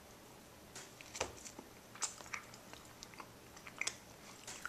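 A baby with four teeth chewing and gnawing on a piece of challah: faint, irregular mouth clicks and smacks.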